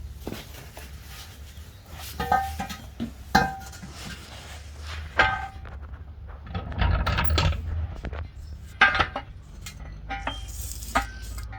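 Metal clanks and clinks of tools and jack parts being handled, several sharp ringing knocks a second or two apart, over a steady low hum.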